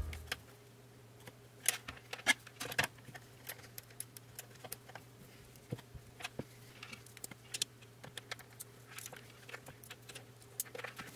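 Scattered small clicks and taps of a screwdriver and wires being worked into the screw terminals of a metal-cased power supply, over a faint steady hum.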